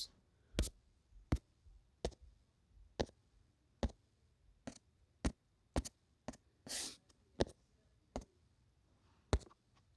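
A run of sharp, separate clicks, roughly one every half second to second, like clicking or tapping through pictures on a device. There is a brief rustle about seven seconds in.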